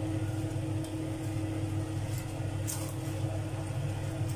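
A wooden spatula stirring and scraping crisp shoestring potato sticks, shredded salt cod and onion in a frying pan, with a few short scrapes, over a steady low hum.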